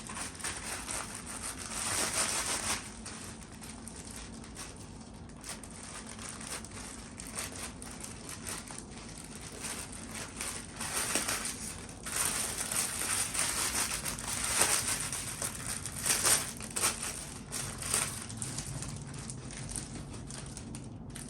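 Balloons being handled and inflated: crinkling and rubbing with hissing stretches, loudest about two seconds in and again between about twelve and seventeen seconds.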